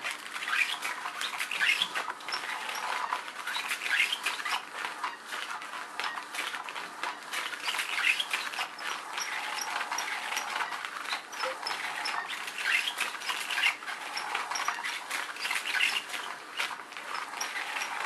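Cat's Meow battery cat toy running: the wand moving under the nylon cover makes a continuous rustling, scraping sound that swells every few seconds as it sweeps around.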